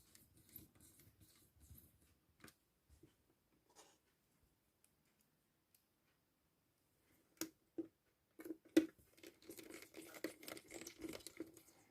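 Faint clicks, ticks and scraping from hands and a small screwdriver working on a laptop's plastic chassis as the back screws are put back in. A couple of sharp clicks come about two-thirds of the way through, followed by a busier stretch of ticking and scraping.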